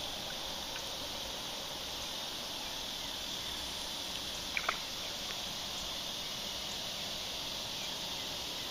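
Insects buzzing steadily along the riverbank, with two short sharp sounds close together about halfway through.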